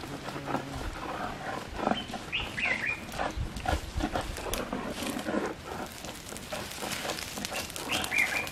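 Wood fire crackling, with the knocks and rustles of hands working around it. A short, high two-note call sounds twice, about two and a half seconds and eight seconds in.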